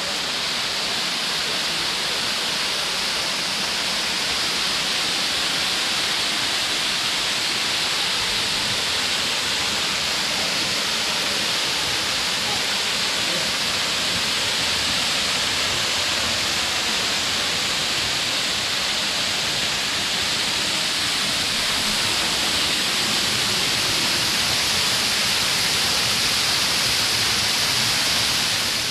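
Waterfall pouring into a rock pool: a steady, loud rush of falling water that grows slightly louder over the stretch.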